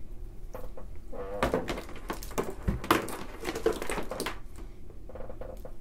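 Flat modular power-supply cables being pulled apart and handled: rustling of the cables and light clicks of their plastic connectors, with a knock about three seconds in. A brief wordless voice sound, like a hum or mutter, runs through the middle.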